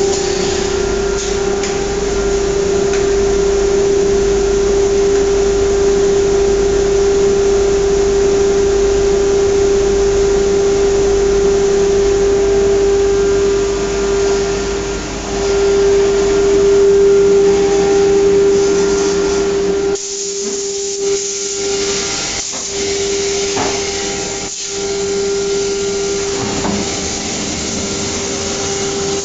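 Panel-processing CNC router running: a steady, high whine from its spindle over a loud rushing hiss of air from the machine's extraction. About twenty seconds in the low rumble drops away, and a couple of short knocks follow.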